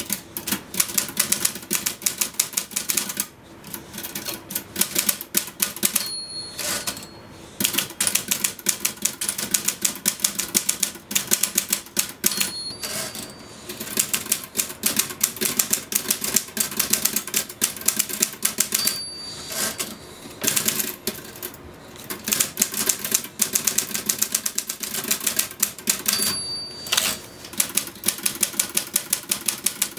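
Typewriter typed on fast and without letup, a rapid clatter of key strikes. About four times a short bell ding sounds, each followed by a brief break as the carriage is returned for a new line.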